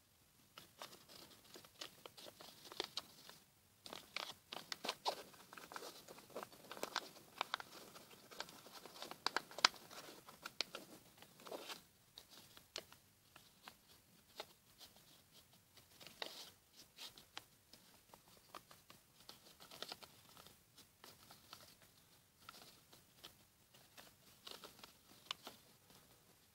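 Sheet of paper crinkling and crackling as it is folded and creased by hand into a paper airplane: faint, irregular quick rustles, busiest in the first half and sparser later.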